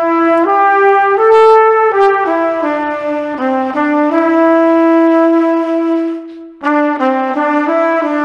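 Instrumental intro music: one melody line played on a brass-like instrument in stepped, held notes. About four seconds in comes a long held note that fades out. After a short break the melody starts again.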